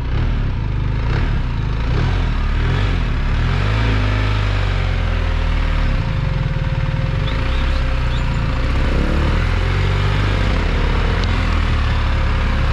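BMW R1300 GS boxer-twin engine running low and steady in second gear as the motorcycle rolls slowly, heard from the rider's seat.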